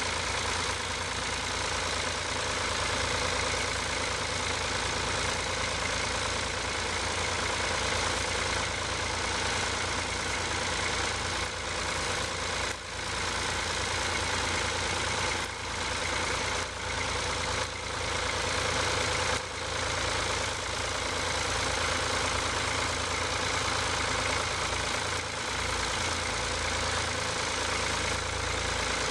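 Ford tractor engine running steadily under load, with a low, even throb.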